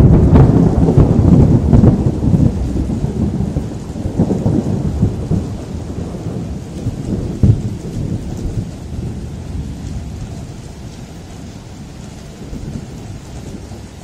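Thunder rolling over steady rain: a loud clap right at the start rumbles on for several seconds, and a short sharp crack comes about seven and a half seconds in. The rumble then dies away, leaving the hiss of the rain.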